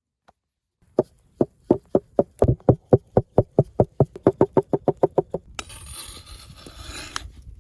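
Pointed wooden stick jabbed through flatbread dough into a wooden board, making about twenty sharp knocks that quicken to around five a second. After an abrupt change, a steady hiss as the dough lies on a hot stone slab.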